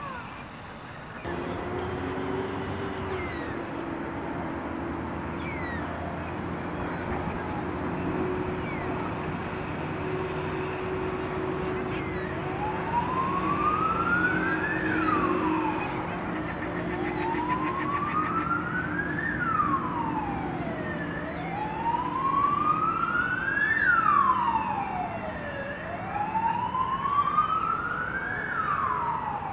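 Emergency-vehicle siren wailing, its pitch rising and falling slowly, about four and a half seconds to each cycle, starting about halfway through and heard four times. Under it runs a steady low hum, with brief high chirps scattered throughout.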